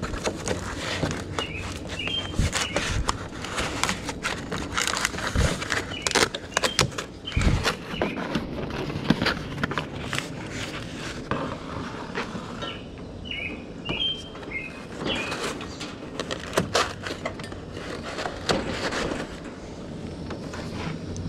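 Repeated knocks, clatter and scraping as a Coleman two-burner propane camp stove is handled and shimmed level on a truck tailgate with a cardboard box and a wooden block.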